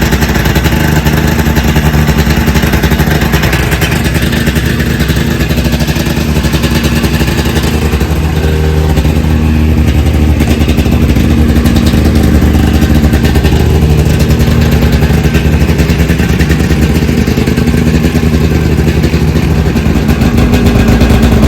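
Polaris 700XC snowmobile's two-stroke twin engine running steadily and loudly, its pitch shifting about a third of the way through and rising slightly near the end.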